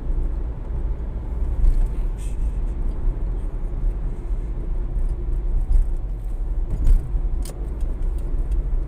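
Car cabin noise while driving on a freeway: a steady low rumble of engine and road, with a few faint clicks or rattles.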